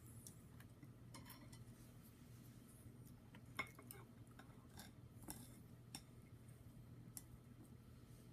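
Faint, scattered short clicks and ticks over a steady low hum, the sharpest about three and a half seconds in.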